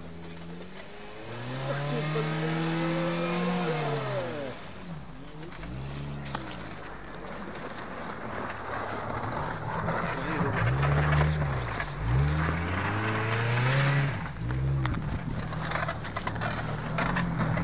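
Suzuki Escudo SUV's engine revving up and easing off again and again, a run of rising and falling revs that grows louder and more frequent in the second half, as it drives through deep snow and climbs a snowy bank.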